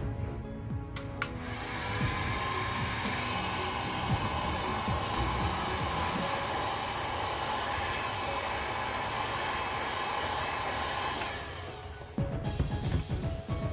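A steady electric blower running for about ten seconds. It starts just after the beginning, stops near the end, and plays over background music.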